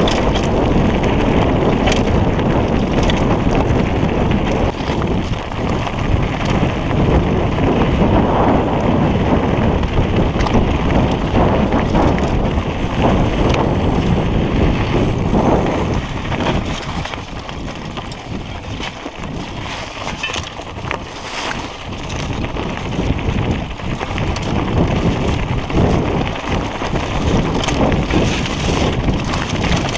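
Wind rushing over the microphone while a mountain bike rides over a rocky trail, its tyres crunching on stones and the bike rattling with frequent small knocks. The noise eases for a stretch in the middle, then picks up again.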